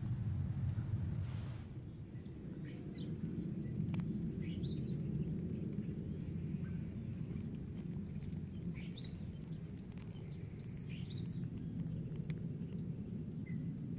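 Low rumble of footsteps and phone handling noise as the camera is carried, with a small bird giving short high chirps every few seconds.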